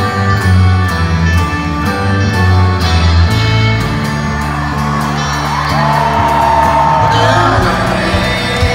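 Folk-rock band playing live, with banjo, acoustic guitar, piano, upright bass and kick drum, heard from the crowd in an arena hall. A voice slides up into a long held note about six seconds in.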